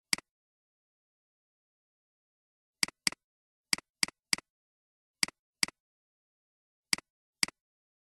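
Computer mouse button clicking about ten times at uneven intervals, a few in quick pairs and triples, each a short, sharp click with dead silence between.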